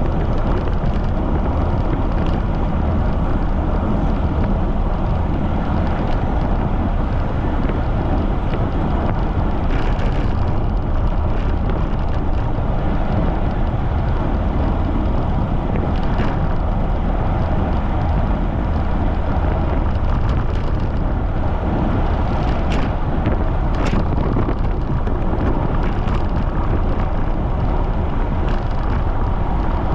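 Strong wind buffeting the microphone of a camera on a moving bicycle, a steady low rushing noise, with a few brief sharp ticks from the bike.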